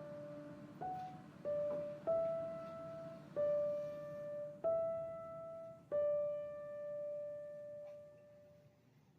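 Background music: a slow piano melody of single notes, six of them about a second apart, the last left to ring and fade out near the end.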